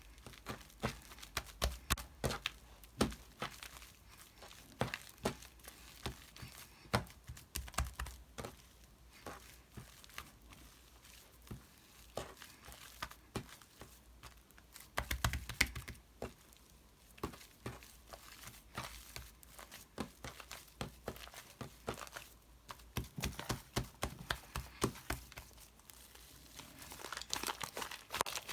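Irregular crinkling and crackling with many short, sharp clicks, as something crinkly is handled close up; the sounds come thicker about halfway through and again near the end.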